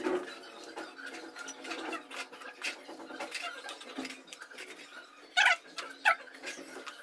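Steel trowel and hands scraping and daubing wet cement mortar onto a form: a run of short scrapes and soft slaps, with two louder short sounds a little after five and six seconds in.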